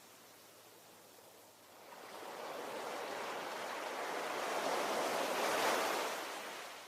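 Ocean waves on a shore: after a lull, one wave swells in about two seconds in, rises to a crash near the end and washes back out.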